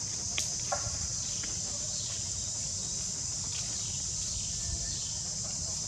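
Steady high-pitched drone of an insect chorus, with a few faint short clicks and chirps about half a second in.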